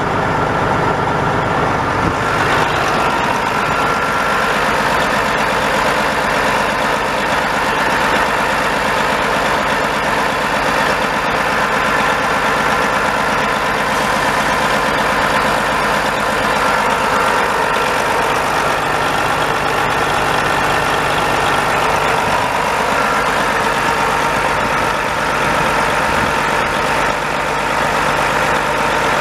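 Detroit Diesel Series 60 12.7-litre inline-six turbo diesel in a 1994 Kenworth T600 truck, idling steadily.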